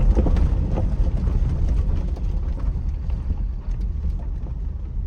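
Inside the cabin of a 2007 Jeep Wrangler JK driving on a rough dirt trail: a steady low rumble from the engine and tyres, with small knocks and rattles from the body.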